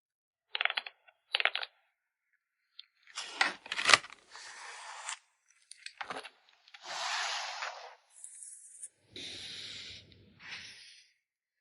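Hands packing photocards in plastic and paper packaging: a series of short crinkles, rustles and sharp clicks, two brief ones first and then longer rustling strokes.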